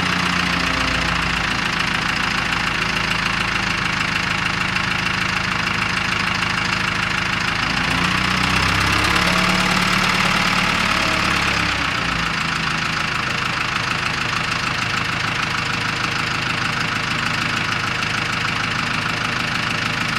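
Backhoe's diesel engine running steadily with a clattering note, working a little harder and louder for a few seconds in the middle.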